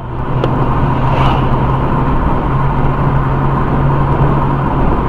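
Steady engine and road noise from inside a moving car, recorded by its dashcam, with a low steady engine hum.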